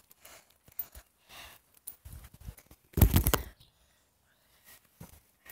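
Handling noise on a phone held on a trampoline: scattered faint rustles and clicks, with one loud burst of rustling and knocking about three seconds in.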